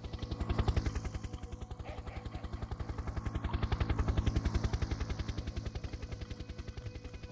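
A rapidly pulsing, chopping sound sample, about ten even pulses a second, played as a virtual source in an eight-loudspeaker Ambisonics room simulation. It swells and fades as the thrown sound bounces around the simulated space.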